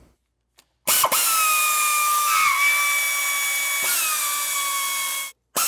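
Handheld air tool whining steadily at high pitch as it spins the 10 mm exhaust manifold nuts off, starting about a second in. The pitch falls slightly after each start; it stops briefly near the end and starts again.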